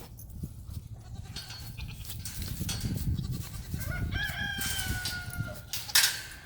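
A farm animal, a goat or a rooster, gives one long call about four seconds in that rises briefly and then slowly falls, over a low outdoor rumble. A sharp knock comes near the end.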